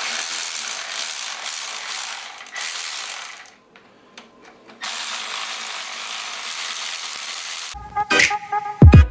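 Ratchet wrench clicking steadily while bolts are worked out of the engine block, with a pause of about a second midway. Music with heavy bass beats comes in near the end.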